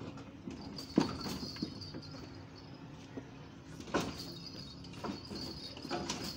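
Scattered metal clanks and knocks from engine-removal work with a chain hoist on a Toyota 3B diesel engine, the sharpest about a second in and another near four seconds.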